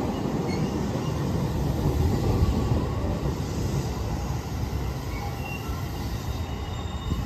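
JR electric commuter train (coupled 223- and 221-series cars) rolling slowly into the station. Steady wheel-and-rail rumble eases off as it brakes toward a stop, with a few faint, short brake or wheel squeals in the second half.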